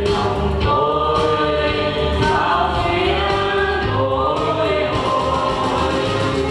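Mixed men's and women's vocal group singing a Vietnamese song in unison into microphones, over instrumental accompaniment with a steady, repeating bass line.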